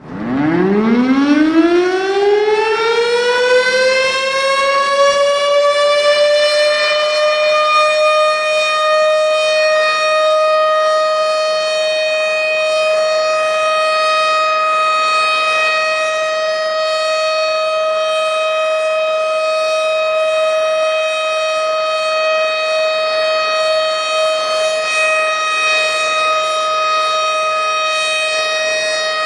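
Tornado warning siren winding up from a low pitch, rising over the first several seconds, then holding one steady wail.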